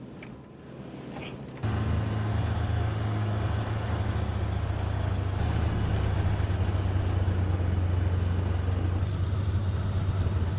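Snowmobile engine cutting in suddenly about a second and a half in, then running steadily at idle with a low, even hum.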